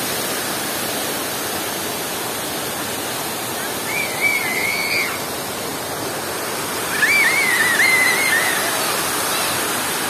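Artificial waterfall pouring into a shallow tiled pool: a steady rush of falling water. Twice, about four and seven seconds in, a brief high wavering sound rises over it.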